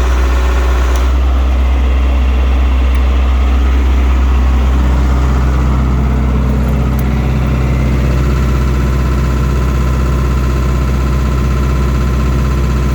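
Diesel generator engine running steadily; its tone changes about a second in and again around five seconds in.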